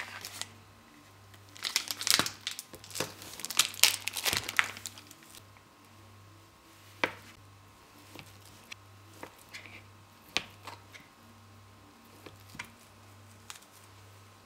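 Plastic tofu packaging crinkling and tearing as it is pulled open, for the first few seconds. Then a knife slicing through a block of tofu, with single sharp taps on the cutting board about a second apart.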